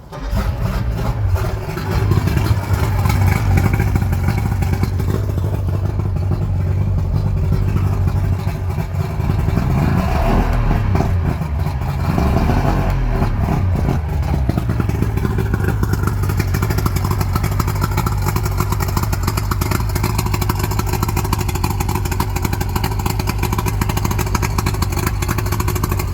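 Outboard motor running, revved up and down through the middle, then running steadily; freshly serviced and running well.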